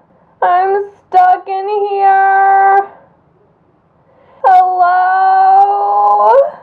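A high voice singing wordless held notes: a short one, then two long steady ones, each sliding up into the pitch at the start.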